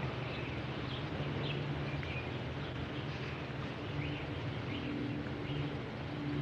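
Outdoor ambience: scattered short bird chirps over a steady low hum and hiss.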